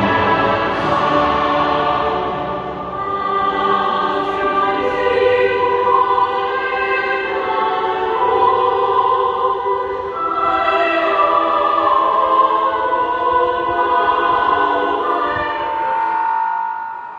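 National anthem sung by massed voices in a stadium, slow and sustained, ending on a long held note.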